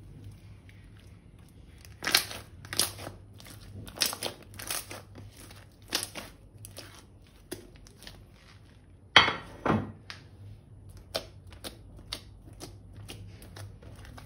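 Crinkling and crunching from slime-making materials being squeezed and handled. Sharp crackles about a second apart start a couple of seconds in, one louder, longer crunch comes past the middle, and lighter clicks follow about twice a second.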